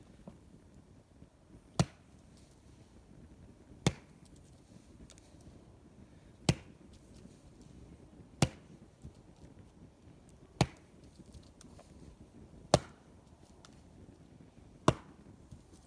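Wood being chopped: seven sharp single strikes, about two seconds apart.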